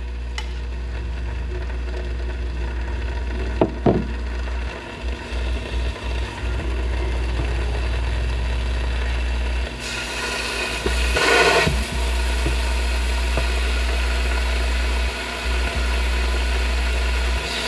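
Squid frying on an electric griddle, the sizzle louder from about ten seconds in with a surge a little later, with a few clicks of metal tongs and a steady low rumble underneath.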